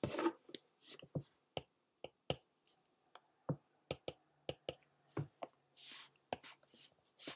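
Light, irregular clicks and taps, about two a second: calculator keys being pressed, then a stylus tapping on a tablet's glass screen as digits are written.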